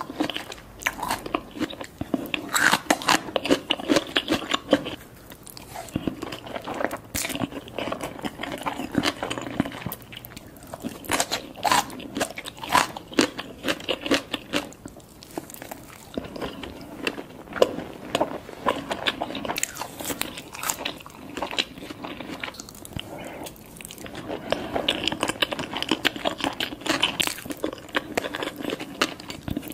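Close-miked chewing of sushi rolls with a crunchy tempura flake topping: crunching, crackling and wet mouth clicks, in busy stretches with a few quieter pauses.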